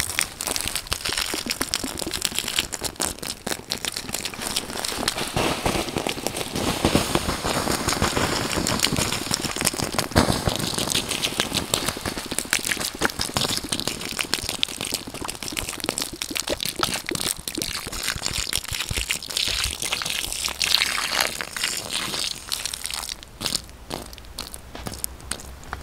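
Water poured in a steady stream onto a campfire's still-smoking ashes to put it out: a continuous splashing hiss full of small crackles as the hot ash steams. It dies down about 23 s in to faint crackling.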